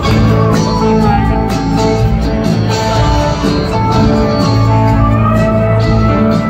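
Live rock band playing an instrumental jam: electric guitar lines over drums, bass and keyboards, heard from the audience in a concert hall.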